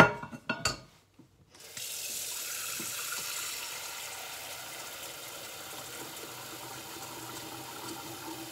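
A few sharp knocks, then a kitchen mixer tap turned on about one and a half seconds in, its water running steadily into the sink.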